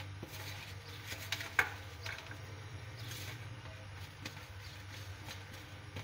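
Spoon stirring dry gram flour and spices in a ceramic plate: light scrapes and a few clicks of the spoon against the plate, the sharpest about one and a half seconds in, over a low steady hum.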